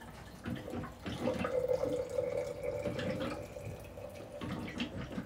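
Hot water being poured into a container, a steady running stream from about a second in until shortly before the end.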